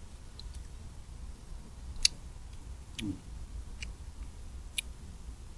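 Eating utensils clicking against dishware: four or five sharp, isolated clicks a second or so apart, over a low steady background rumble.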